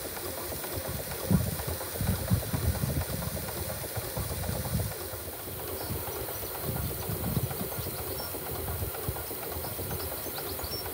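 4-inch scale Burrell 6nhp agricultural steam traction engine running, with low, uneven repeated beats under a steady hiss of steam.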